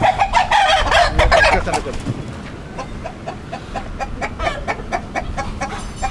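A country chicken (naatu kozhi) rooster gives a loud drawn-out call for about two seconds, then clucks in a quick run of short notes, about three or four a second.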